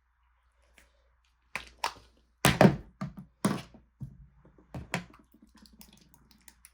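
A run of thunks and clicks as small objects are handled and set down on a hard surface: about eight sharp knocks, the loudest a few seconds in, then faint rustling.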